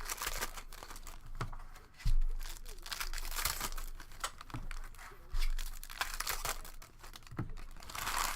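Trading card pack wrappers crinkling and tearing open, and cards being handled, with three dull low thumps, the loudest about two and five seconds in.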